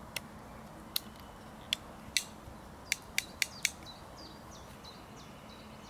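About eight sharp plastic clicks over the first four seconds as the belt clip is fitted and snapped onto the back of a Retevis RT24 PMR446 walkie-talkie. Faint bird chirps follow near the end.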